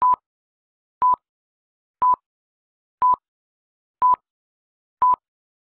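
Six short electronic beeps at one steady pitch, one each second, with dead silence between them.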